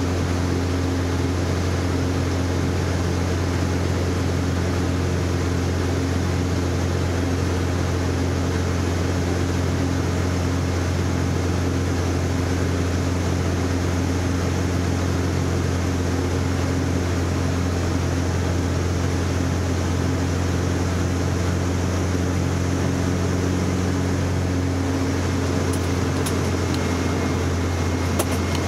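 Engine and propeller of a CAP 10B aerobatic plane, with its four-cylinder Lycoming engine, running steadily as heard inside the cockpit in flight.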